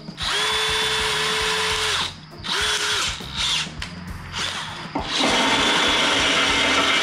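Cordless drill boring a hole through the steel of an excavator bucket with a twist bit. It runs steadily for about two seconds, gives a few short bursts, then runs steadily again from about five seconds in.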